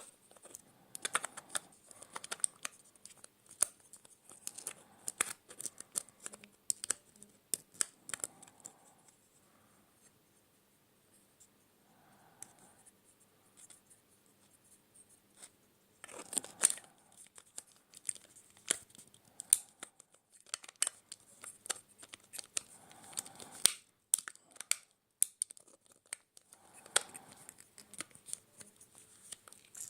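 Small plastic parts being handled and pushed together by hand: interchangeable plug heads fitted onto a power adapter, with scattered sharp clicks, taps and scraping. A quieter spell in the middle, then the handling picks up again.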